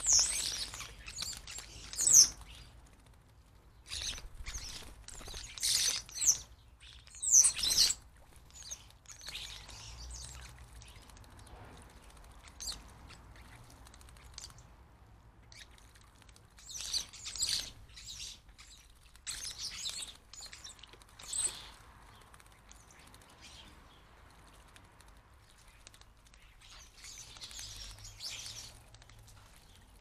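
European starlings splashing in a bird bath in repeated bursts, with chirping calls among the splashes; the loudest bursts come in the first eight seconds.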